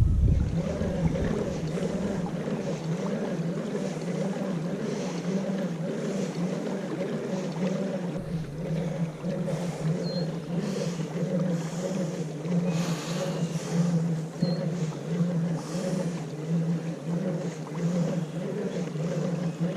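Feelfree kayak pedal drive turning its propeller: a steady hum with a regular pulsing wobble. The prop has a blade snapped off from hitting bottom, and the drive is shaking the boat.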